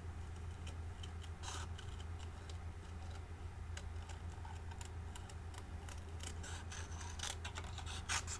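Small craft scissors snipping through cardstock in short, irregular cuts, fussy-cutting around a small image, with the snips coming faster in the second half. A steady low hum sits underneath.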